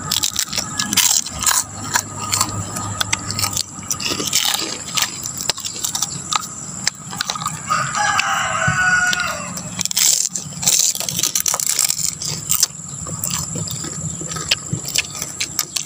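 Crisp, crackling crunches of fried beef chicharon being bitten and chewed, many sharp cracks in quick succession. A rooster crows once, about eight seconds in.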